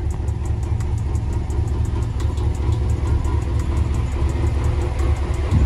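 A vehicle engine idling steadily with a low rumble, a fast, even ticking running over it.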